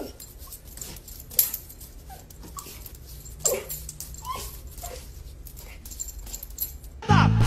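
A small puppy giving short, high yips and whimpers, a handful of separate calls spread over several seconds. Near the end, loud music cuts in.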